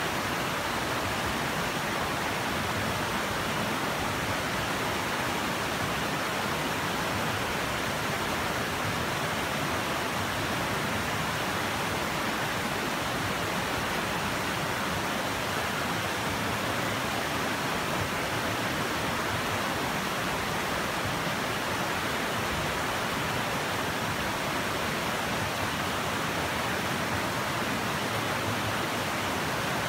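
Shallow, rocky river rushing over stones and small rapids, a steady, unbroken rush of water.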